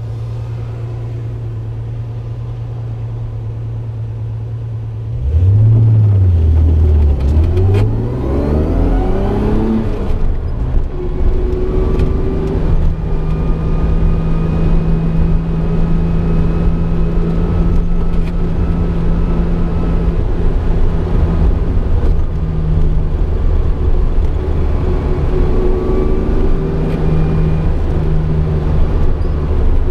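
1965 Jaguar E-Type's straight-six through a new straight-through Bell sport muffler, heard from inside the cabin. It idles steadily, then about five seconds in it grows louder and revs up. The pitch drops at a gear change and climbs again. From about twelve seconds it settles into a steady cruise.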